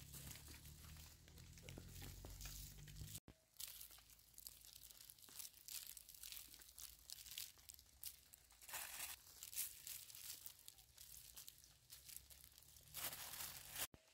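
Faint, irregular rustling and crackling, broken by two abrupt cuts.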